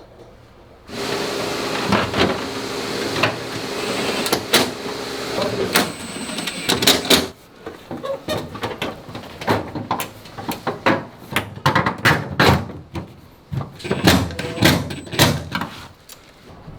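Air conditioner parts being reassembled: a steady mechanical whir for several seconds, then a long run of sharp clicks and knocks from panels and parts being fitted and snapped into place.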